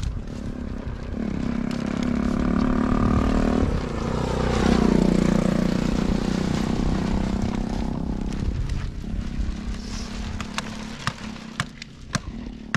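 A motor vehicle passing on the road: its engine builds over the first few seconds, drops in pitch as it goes by about four seconds in, and fades away. A few sharp clicks follow near the end.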